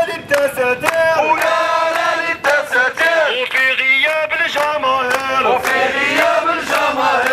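A man's voice chanting protest slogans through a megaphone, harsh and loud, with rhythmic hand clapping about twice a second.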